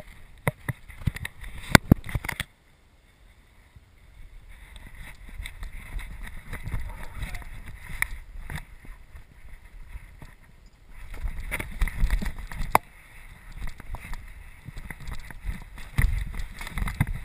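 Handling and rubbing noise from a GoPro strapped to a golden retriever: several sharp knocks and clicks, with stretches of low rumble as the dog moves around.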